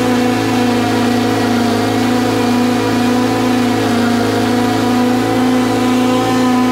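John Deere 652M stand-on commercial mower's engine running steadily at a constant pitch.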